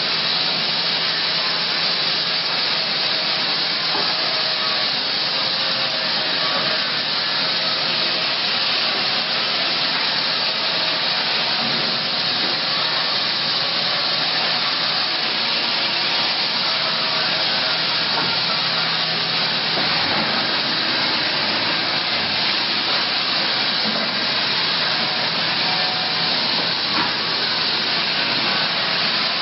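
Sawmill machinery running: a steady, even hiss-like din with a faint low hum underneath.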